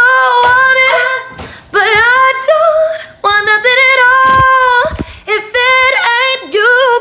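A woman singing loudly in phrases, holding long notes with a wide vibrato, with short breaks between phrases.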